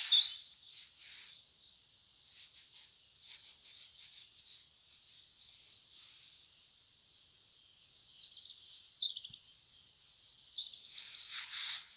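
A small songbird singing a fast run of high chirps and trills in the last few seconds, over quiet outdoor background with faint high twittering. A short scratchy scrape at the very start.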